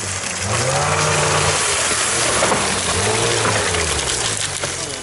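Snowmobile engines running, their pitch rising and falling in two slow swells, under a loud steady rushing noise.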